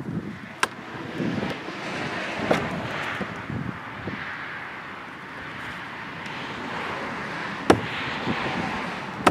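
Outdoor rushing noise that swells and fades over several seconds, broken by three sharp clicks, the sharpest near the end.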